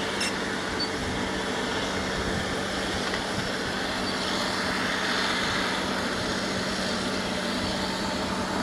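Caterpillar D6R bulldozer's diesel engine running steadily, a constant low hum over a broad rumble.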